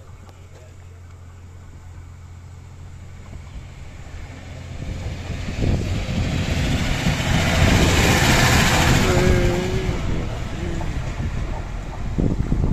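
FEVE 2900-series diesel railcar approaching and passing close by. Its engine hum and wheel noise build over several seconds, are loudest a little past the middle as it goes by, then ease off as it runs on toward the station.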